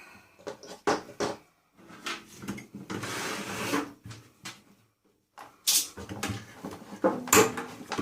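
Knocks and clatter of metal parts being handled and dropped while a microwave is stripped for scrap, with a short scraping stretch near the middle.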